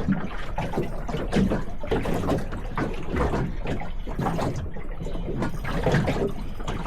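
Water slapping and lapping against a small boat's hull in choppy water, with irregular knocks and splashes over a steady low rumble.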